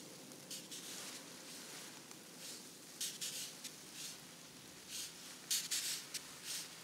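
Faint, irregular crinkling and rustling of a plastic sheet as a body shifts and rubs beneath it, in short scratchy bursts that come thickest about three seconds in and again after five seconds.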